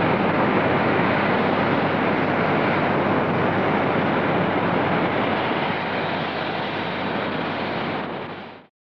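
NSWGR 38 class steam locomotive and its train running past, a steady rushing roar with no distinct exhaust beats, which fades a little and then cuts off near the end.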